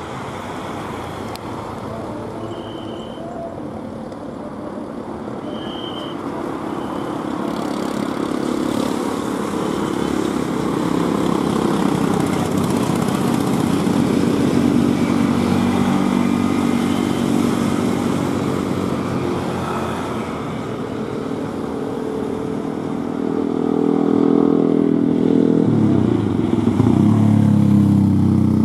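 Airbus A330-243's twin Rolls-Royce Trent 700 jet engines running at taxi thrust, a steady jet whine and rumble that grows louder as the airliner taxis close by, with a deeper hum coming in near the end.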